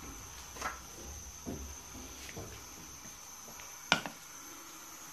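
Quiet kitchen handling sounds: a few soft knocks, then one sharp click about four seconds in as the ceramic bowl of sliced onions is picked up from the counter. A faint steady high-pitched tone runs underneath.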